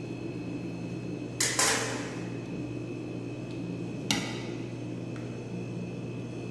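Kitchenware knocking on a countertop and ceramic bowl during plating: a short clatter about one and a half seconds in and one sharp clink about four seconds in, over a steady background hum.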